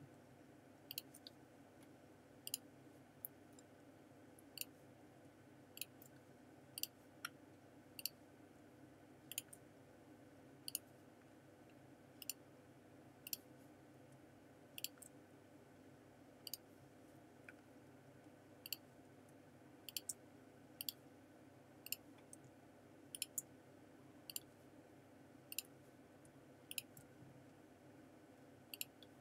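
Computer mouse clicking, single clicks roughly once a second with a few quick double clicks, while points and colours are selected in a drawing program. Under the clicks is a faint steady hum.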